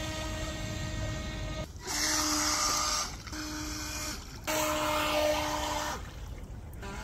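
Steady whine of the small electric motor of a motorized duck decoy driving across the water, over a hiss of water. It is cut short and resumes at a slightly different pitch several times.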